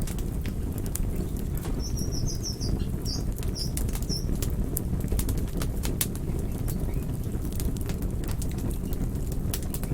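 Campfire burning with a steady low rush and frequent sharp crackles and pops of wood. A few short high bird chirps come about two to four seconds in.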